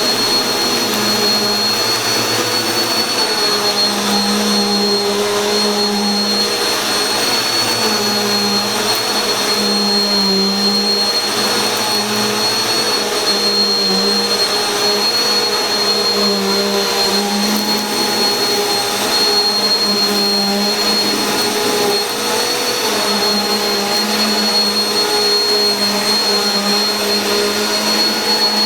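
Bissell PowerForce Helix bagless vacuum cleaner running steadily: a constant high motor whine over the rushing noise of the suction.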